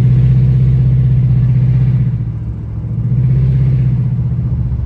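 Jaguar XJR's supercharged V8 running hard under acceleration, a steady drone that eases off briefly just past two seconds in and then picks up again. The driver feels it still holding back and hesitating just a hair, which he can kind of hear in the exhaust tone, a trace of the cylinder-4 misfire.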